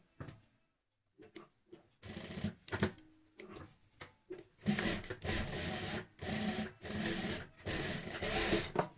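Juki single-needle industrial sewing machine stitching through layers of fabric in stop-start runs. There are a few short bursts at first. From about halfway in come longer runs of about a second each, with brief pauses between them.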